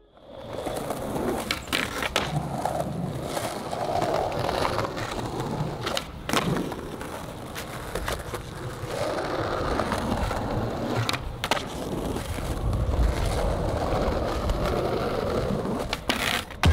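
Skateboard wheels rolling over pavement with a steady rumble, broken several times by sharp clacks of the board popping and landing.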